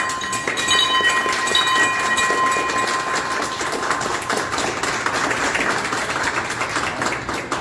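Wall-mounted end-of-treatment bell rung a few times, signalling that a patient has completed cancer treatment; its clear ring fades out about three seconds in. Steady applause from a small group runs underneath.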